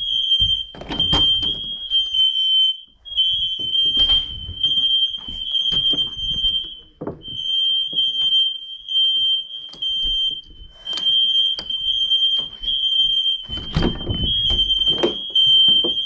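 Household smoke alarms sounding during an alarm test: a steady, piercing high-pitched tone with a few short breaks, over scattered thumps of someone moving through the rooms.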